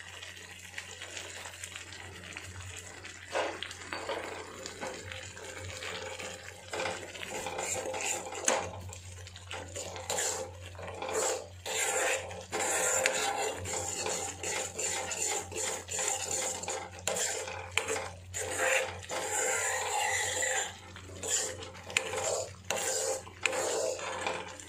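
Metal ladle scraping and clinking against an iron kadai while stirring a thick gravy, in uneven strokes that get busier and louder about eight seconds in.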